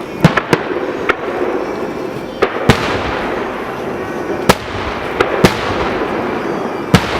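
Aerial fireworks shells bursting: about ten sharp bangs at irregular intervals, the loudest about two and a half seconds in and near the middle, over a steady rushing noise.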